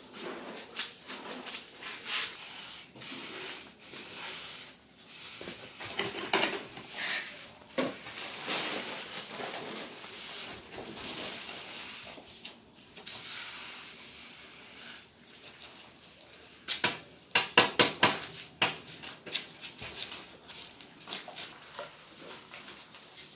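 Wet cement mix poured from a metal pail and worked over a fresh concrete floor: irregular scraping and sloshing with clinks of the metal pail, and a quick run of sharp knocks about two-thirds of the way through.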